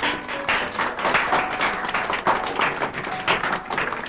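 Audience applauding steadily, many hands clapping at once, with soft background music underneath.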